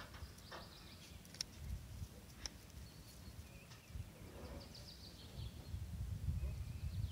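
Outdoor ambience: small birds chirping now and then over a low rumble that grows louder in the second half.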